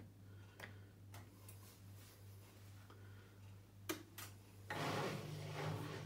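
Indesit IWDE126 washer dryer starting a cycle: a few light clicks and a sharp click about four seconds in, then its drain pump starts near the end with a steady hum. There is no sound of the drum motor turning, because its carbon brushes are worn out.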